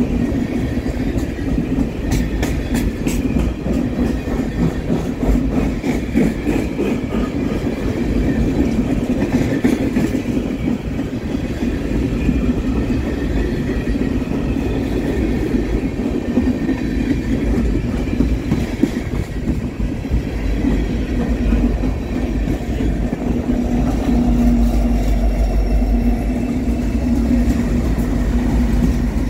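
Freight train rolling past, a steady heavy rumble with runs of sharp clicks as the wheels pass over the rail joints.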